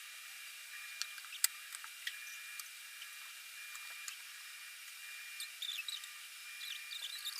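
Faint pencil scratching and tapping on paper over a steady hiss, with a few sharp clicks early and a run of quick short strokes near the end.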